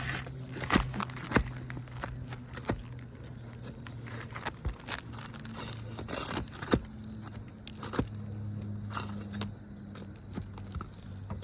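Nails being pried out of roof shingles: a metal hand tool scraping and clicking against the shingles and nail heads, with scattered sharp knocks over a steady low hum.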